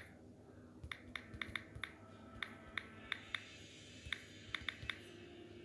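Faint key-tap clicks of a smartphone's on-screen keyboard as text is typed: a string of short, sharp taps at uneven spacing.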